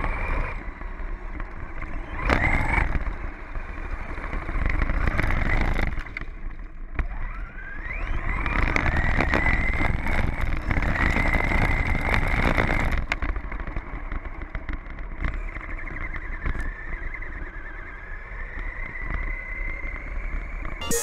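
Electric RC car's brushless motor (Team Orion R8 Vortex) whining as the car drives, the whine rising in pitch about eight seconds in and holding high for several seconds, over gear and tyre rumble. A sharp knock about two seconds in.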